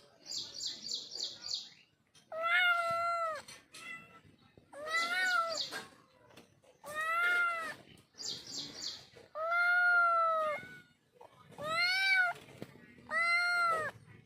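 A cat meowing six times, each meow about a second long and rising then falling in pitch. Between some of the meows there are short runs of rapid high chirps.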